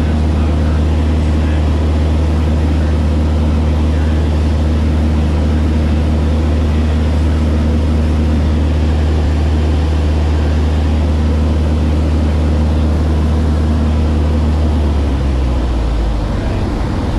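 Maule light aircraft's engine and propeller droning steadily in flight, heard from inside the cockpit. About fifteen seconds in the engine note drops and changes as the throttle is pulled back for a simulated engine failure.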